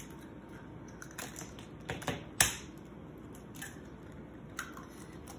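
Eggs being cracked into a mixing bowl: a handful of short, sharp taps and clicks of eggshell, the loudest about halfway through, and the crackle of a shell being pulled apart.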